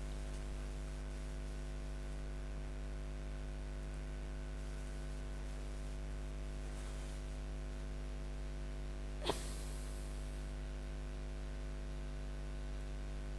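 Steady mains hum with its overtones in the recording, broken once about nine seconds in by a single short, sharp noise with a brief hiss trailing after it.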